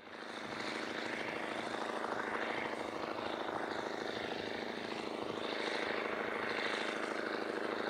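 Scania V8 diesel of a rebuilt Steiger Cougar tractor, a 450 hp truck engine from a Scania 143, running as a steady drone under load while pulling a nine-furrow reversible plough. The sound fades in over the first second.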